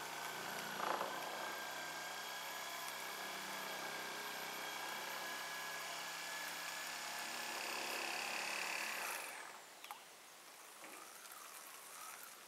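A small motor runs with a steady hum and high whine. About nine seconds in it is switched off and its pitch falls away as it stops. A light knock comes about a second in.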